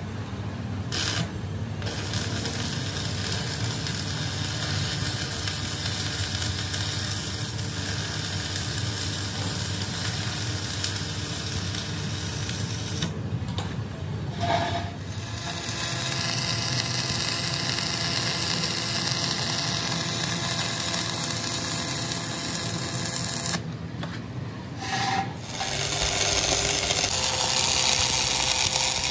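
Electric arc welding on a steel tractor wheel rim: a steady hiss in long runs, broken by short pauses near the start, about halfway through, and a few seconds before the end.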